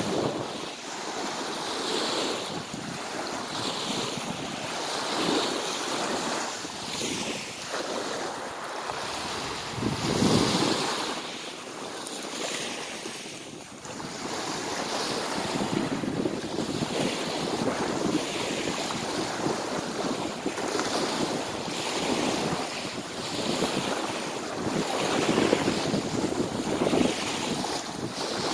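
Small sea waves breaking and washing up over a pebble beach, swelling and ebbing every second or two, with wind buffeting the microphone.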